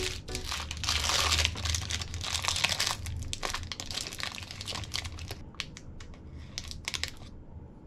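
Aluminium foil chocolate wrapper crinkling as it is unwrapped and spread open by hand. The crinkling is loudest in the first three seconds, then thins to a few light rustles and stops about seven seconds in.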